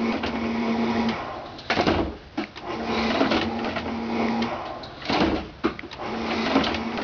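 Sump pump motor humming in runs of about two seconds, each followed shortly after by a loud clatter from the trash can pop-up prop it drives; the cycle repeats about every three seconds.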